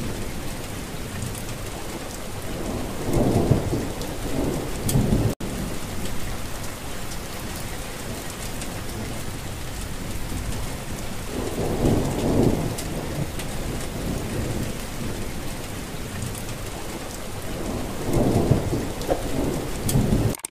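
Steady rain with thunder rumbling three times: about three seconds in, around twelve seconds in, and near the end. The sound cuts out for an instant about five seconds in.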